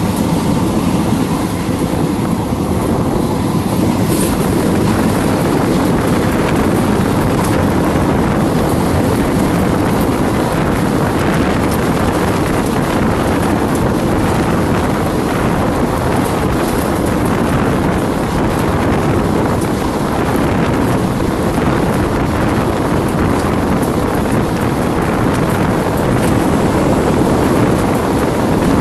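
Passenger train running along the line, the rumble of the coach and its wheels on the rails mixed with heavy wind buffeting the microphone held out at the window.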